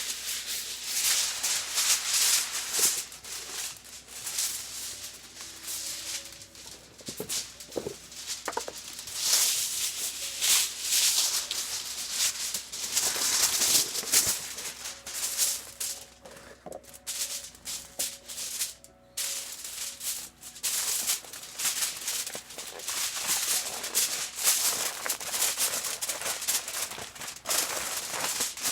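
Aluminium foil rustling and crinkling in irregular surges as a sheet is pulled out and scrunched by hand.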